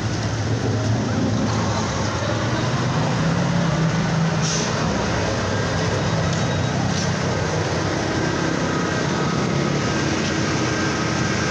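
Steady rushing of floodwater across a flooded road, with vehicle engines running low underneath.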